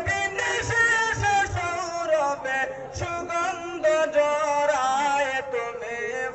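A man singing an Islamic gazal solo: one voice holding long notes that wind up and down in pitch, with short breaks between phrases.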